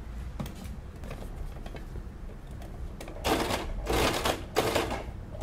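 Household electric sewing machine stitching in several short spells, starting about three seconds in, after a few soft clicks of fabric being handled at the machine.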